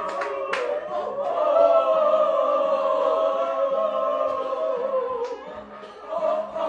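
Choral singing: several voices hold long notes together, with a single sharp clap about half a second in and a short dip in loudness near the end.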